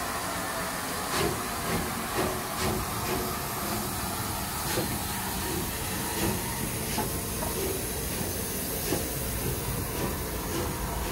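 Battle of Britain class Bulleid Light Pacific steam locomotive with steam hissing steadily from around its cylinders. Irregular soft beats come through the hiss every half second to a second and a half.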